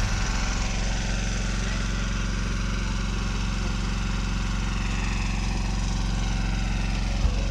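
Engine on a fishing boat running steadily at an even speed, a low unchanging drone.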